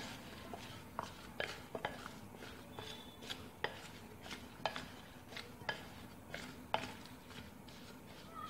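A spoon stirring chopped vegetables and spices in a glass bowl, knocking against the glass in irregular clinks about once or twice a second.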